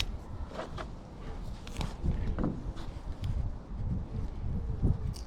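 Scattered small knocks, clicks and rustling handling noises as a little piece of sealing tape is pulled off and worked by hand.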